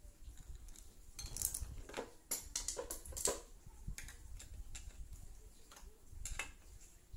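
Light metallic clinks and taps of hand tools on metal parts, a quick run of them from about a second in to midway, then a few scattered ones, over a low steady rumble.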